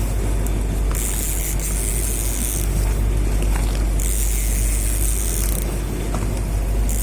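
Boat engine running steadily with a low drone, while a high hiss rises and falls about every three seconds.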